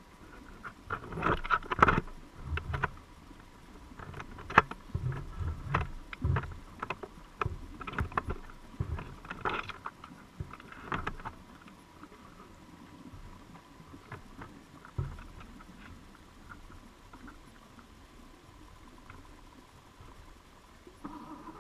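Irregular muffled knocks and clicks, heard underwater through a GoPro's waterproof housing inside a submerged crab trap, thick in the first half and sparser later, with a faint steady whine underneath.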